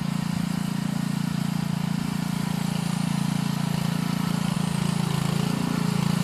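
Honda GXV160 four-stroke engine of a Muck Truck Max power barrow running steadily as the barrow drives along carrying a heavy load, growing gradually louder as it comes closer.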